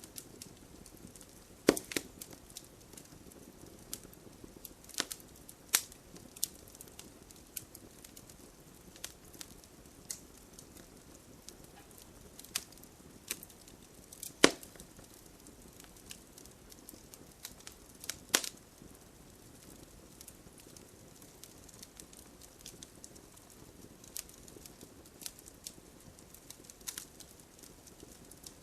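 Wood fire burning in a fireplace: a low steady hiss with irregular sharp crackles and pops, a few of them much louder than the rest.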